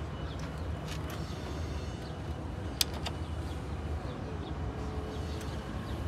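A steady low rumble, with one sharp click about three seconds in.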